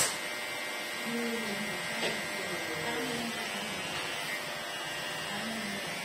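Cordless electric hair clipper running steadily with a thin, even whine as its blade shaves hair close to the scalp.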